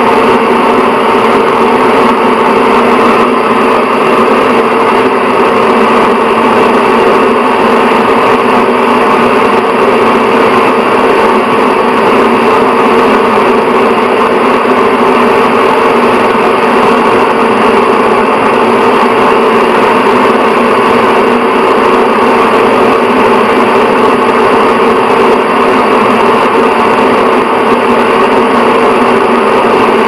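Bathroom exhaust fan running continuously: a steady hum and rush of air with several steady tones, unchanging throughout.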